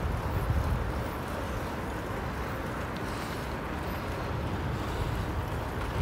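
Steady rushing noise of wind on the microphone and road noise while moving along a street, with low buffeting rumbles near the start and end.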